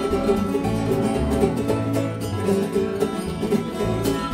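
Live bluegrass band playing an instrumental opening, with no singing yet: strummed acoustic guitars, mandolin, resonator guitar and upright bass in a steady beat.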